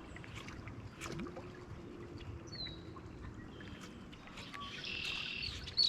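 Quiet outdoor ambience with small birds chirping: one short falling chirp near the middle and a quick run of high chirps near the end, with a few faint clicks.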